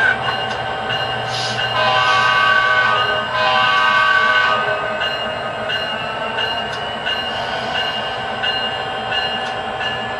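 A chorded train horn sounds for about three seconds, starting about a second and a half in, over the steady running noise and faint rail clicks of an HO scale model train moving along the track.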